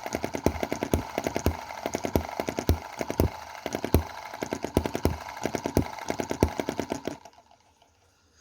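Small single-cylinder EM2 hit-and-miss model engine running, with a steady beat of firing thumps and mechanical clatter between them. It cuts off about seven seconds in. The valve timing has been moved one cog tooth, and it misfires less, though to the owner it sounds like it has slightly less power.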